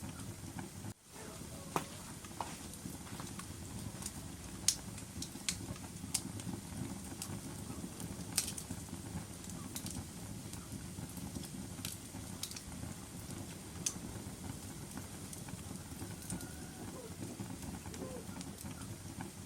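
Wood fire burning in a fireplace: a steady low rush of flames with scattered sharp crackles and pops, a few of them louder. The sound briefly drops out about a second in.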